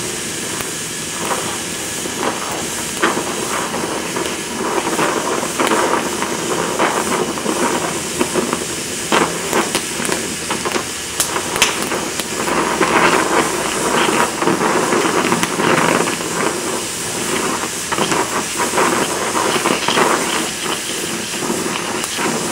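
Oxyacetylene welding torch flame hissing steadily, with frequent sharp crackles and pops while sparks fly from the weld puddle.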